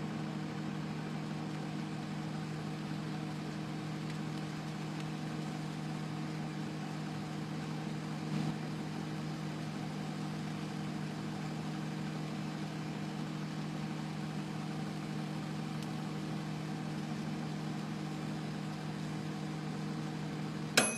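Microwave oven running with a steady hum, with a brief louder sound about eight seconds in. A sharp click near the end, after which the hum stops.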